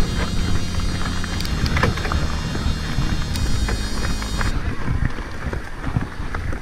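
Electric mountain bike riding over a rough trail: wind buffets the helmet camera's microphone with a low rumble, and the bike clatters with many small clicks and knocks. A steady whine, the e-bike's assist motor, runs until it cuts off about four and a half seconds in.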